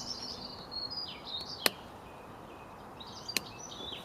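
Birds singing and chirping in the background. Two sharp clicks come about a second and a half apart, from hands working a plastic washer hose and its connector.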